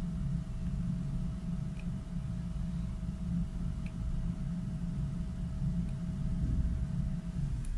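Steady low background rumble with a faint steady whine that stops just before the end, and a couple of faint small ticks.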